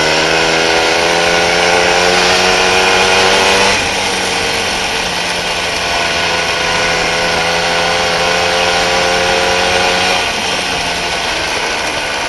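Small, very loud engine of a vehicle being ridden, pulling hard: its pitch climbs over the first few seconds, drops suddenly about four seconds in, climbs slowly again and drops once more near the end.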